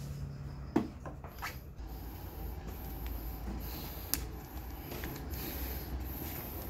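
Faint handling sounds of hand work on a scooter's handlebar and heated grip: small scrapes and a sharp click about a second in, another about four seconds in, over a low steady hum.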